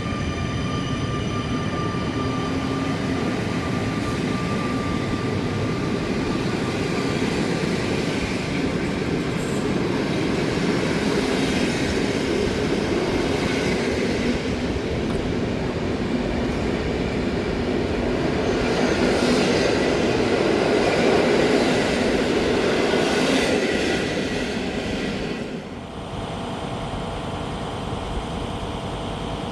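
A train running along the station tracks, wheels on rails, with a steady whine in the first seconds. It grows louder in the second half and then drops off sharply near the end as the train goes by.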